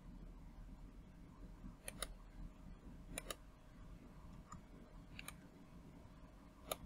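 Faint computer mouse clicks: five or so sharp clicks about a second apart, some in quick pairs, over a low steady hum.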